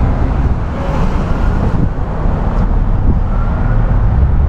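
Road traffic noise, a steady low rumble.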